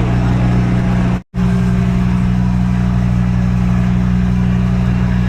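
Ferry's engines running with a loud, steady, low drone, holding several fixed low tones. The sound drops out completely for a moment about a second in.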